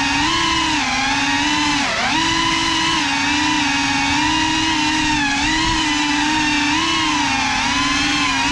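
Cinelog 35 cinewhoop FPV drone's brushless motors and propellers whining steadily in flight. The pitch drops sharply about two seconds in and dips twice more later as the throttle is eased and picked up again.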